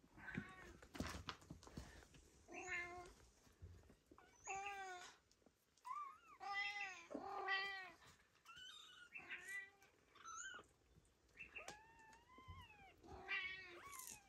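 Four-week-old ragdoll kittens meowing: a string of short, high, rising-and-falling calls, several overlapping, with faint rustling at the start.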